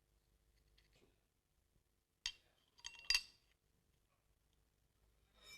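Small metal parts of a blade-sharpening jig being handled. There is a sharp click about two seconds in, a few light metallic clinks around three seconds, and a fainter clink near the end.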